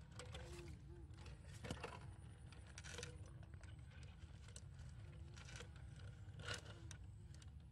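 Quiet handling of a green plastic-net fish trap with PVC pipe funnels: scattered small clicks and rustles, the clearest about two seconds in, three seconds in and near the end, over a low steady rumble.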